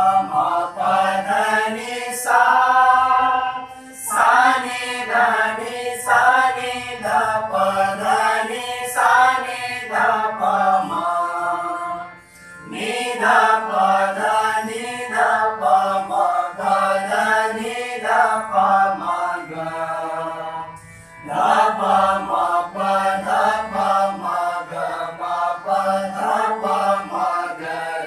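A group singing Indian classical sargam alankar exercises in unison (sa re ga ma pa dha ni), note by note, accompanied by a harmonium. The sung phrases step up and down in pitch, with short breaks between phrases about 12 and 21 seconds in.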